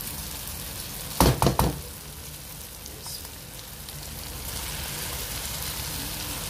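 Masala and chicken mince frying in a pan, a steady sizzle, with a quick cluster of sharp knocks about a second in as the mince goes in; the sizzle grows stronger in the second half.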